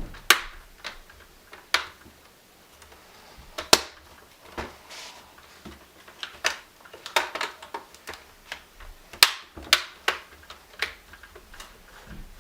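Plastic screen bezel of a Toshiba Satellite laptop being pressed back onto the display lid, its clips snapping into place in a series of irregular sharp clicks.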